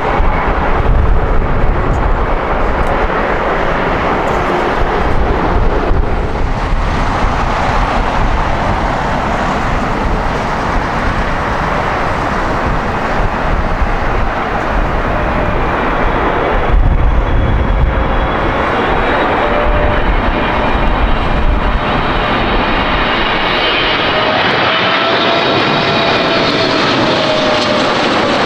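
Jet airliner engines running loud and close, a continuous roar with deep rumble. In the second half, whining engine tones rise out of the roar, waver in pitch, and drop near the end as the aircraft passes.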